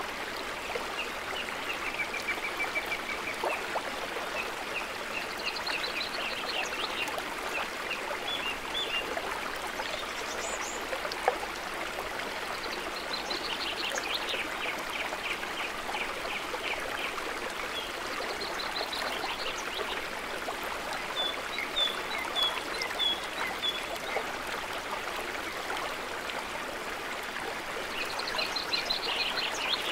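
Woodland stream running steadily over rocks, with high chirping calls in quick runs of notes every few seconds and a single sharp click about eleven seconds in.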